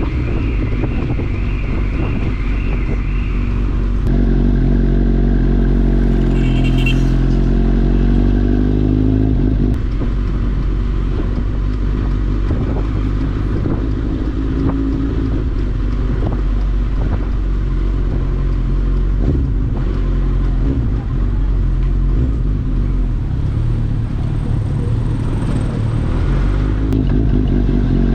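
Suzuki GSX-S1000 inline-four running through a LeoVince aftermarket exhaust while riding. About four seconds in it revs up steadily for several seconds, then drops at a gear change near the ten-second mark, and rides on at a steadier pitch.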